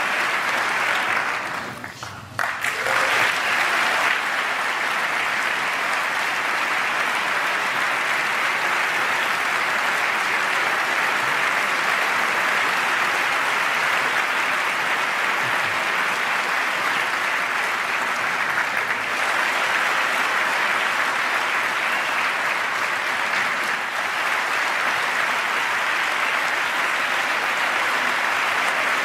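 Large crowd of members of Congress applauding, a dense, steady clapping that dips briefly about two seconds in and comes straight back.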